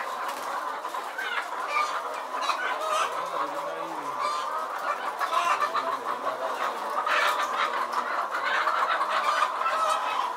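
A flock of caged laying hens clucking and cackling together in a continuous, overlapping chorus.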